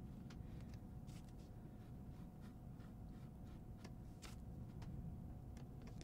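Faint, soft scratching of a damp flat brush gently scrubbing along a paint edge on watercolour paper to lift the paint, heard as a few scattered light ticks over a faint steady hum.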